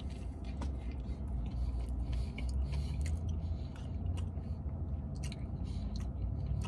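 A man biting into a burger and chewing it with his mouth full, giving irregular wet clicks and smacks, over a low steady hum.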